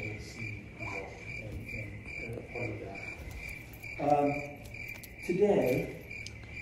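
A high chirp repeating steadily about two or three times a second, with a man's voice speaking briefly in the room twice, about four and five seconds in.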